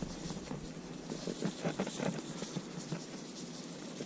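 A seasoning shaker being shaken over a glass baking dish: faint, irregular little ticks and rattles as the salt and pepper sprinkle out.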